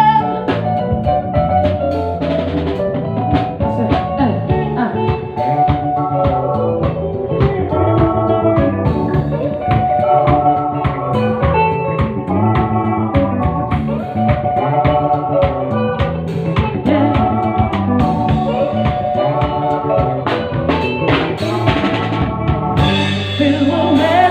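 A live band's sound check: a drum kit keeping a steady beat under instruments and singing voices.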